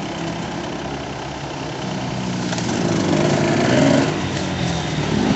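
Several off-road motorcycle engines running as the bikes ride round the track, growing louder over the first four seconds as one bike passes close.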